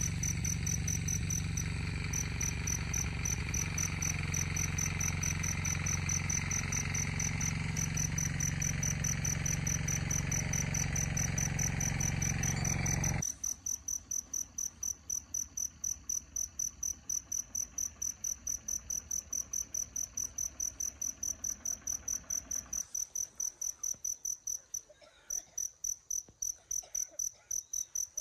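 Insects chirping in a fast, even, high-pitched pulse. Under it, a steady low rumble and hiss cuts off suddenly about halfway through, leaving the chirping alone.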